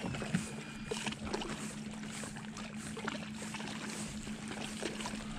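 Bow-mounted Minn Kota electric trolling motor running with a steady hum, moving the bass boat up toward the bank, over light water noise and a few faint ticks.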